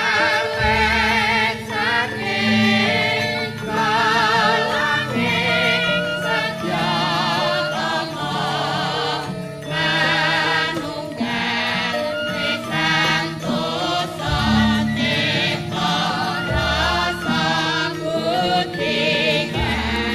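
Javanese gamelan music, a ladrang in pelog tuning: bronze metallophones and gongs playing steady struck notes under voices singing with a wavering vibrato.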